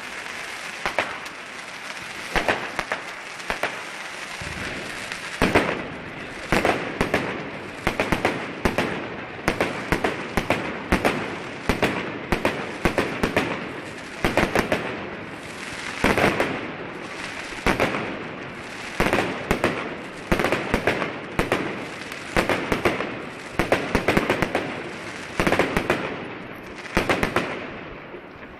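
Fireworks display: a rapid, continuous run of bangs and crackles. The bangs become denser about five seconds in.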